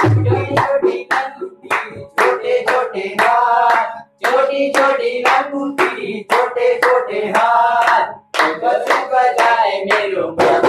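Men singing a Hindi devotional song together, keeping time with steady rhythmic hand claps, over a harmonium.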